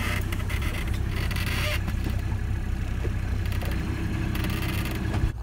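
Boat engine running at a low, steady idle, with a rushing noise over it; the sound cuts off abruptly near the end.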